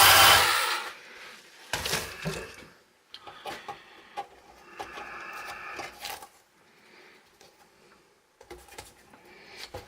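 A power tool working on metal stops about half a second in, followed by scattered small knocks and clatters of tools and parts being handled.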